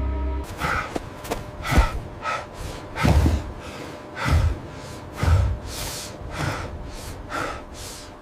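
A person breathing hard in heavy gasps, about one a second, with a low thud under most of them.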